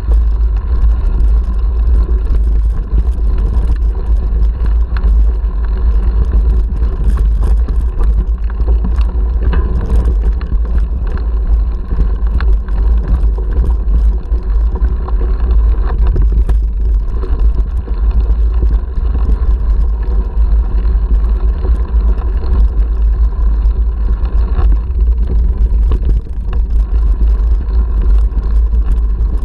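Wind buffeting an action camera's microphone on a mountain bike riding a rocky dirt track, a heavy steady rumble, with tyres crunching over gravel and scattered rattles and knocks from the bike.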